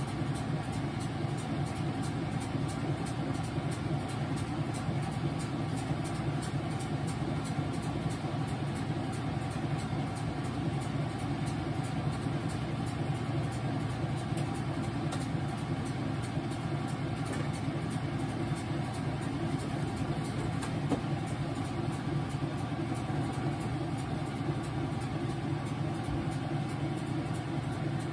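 Whirlpool washing machine running with a steady motor hum.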